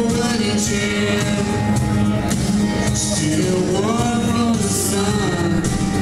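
A boy singing a melody into a handheld microphone, amplified through a PA, over accompanying music with a steady low bass and recurring cymbal-like hiss.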